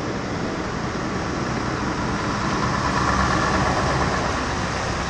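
Scania V8 truck engine pulling a semi-trailer slowly toward and past, growing louder to a peak about three seconds in, then beginning to fade.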